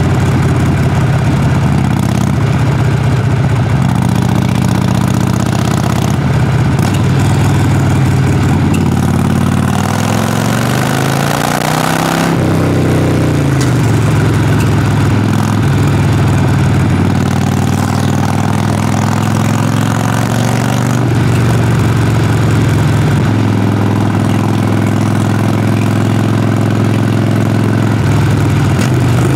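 Harley-Davidson Sportster Forty-Eight's air-cooled V-twin exhaust running at a low, steady rumble, recorded close to the exhaust. About ten seconds in, the revs climb for two seconds, then drop back to the steady rumble.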